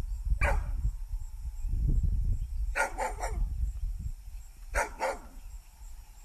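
A large dog barking in short bursts: one bark, then a quick run of three, then two more, over a constant low rumble.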